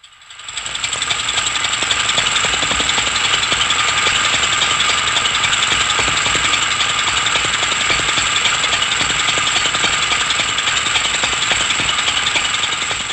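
Steady, loud mechanical rattle, like a machine running with a rapid clatter. It builds up over the first second, then holds even throughout.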